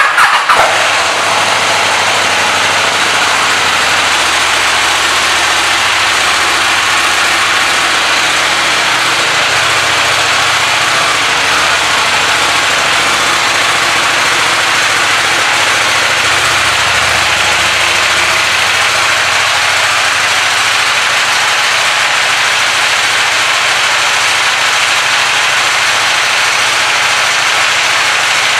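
KTM 790 Duke's parallel-twin engine starting with a brief loud burst, then idling steadily.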